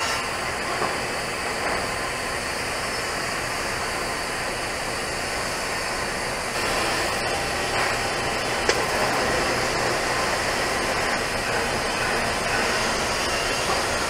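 TIG welding arc on a steel pipe during the final cap pass: a steady hiss with a faint low hum, and one short click about two-thirds of the way in.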